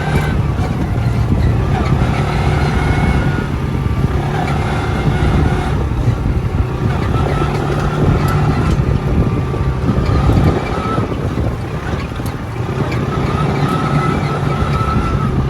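Engine of a small automatic UTV running as it is driven along, heard from on board, its note shifting up and down with speed.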